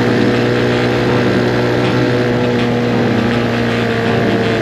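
Motorcycle engine running at a steady cruising speed, with road and wind noise; its pitch eases down slightly near the end.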